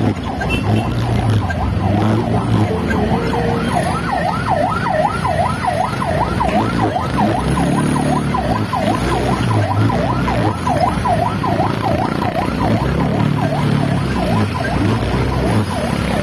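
Ambulance siren in a fast yelp, its pitch sweeping up and down two to three times a second. It starts about a second in, over the steady hum of motorcycle engines in traffic.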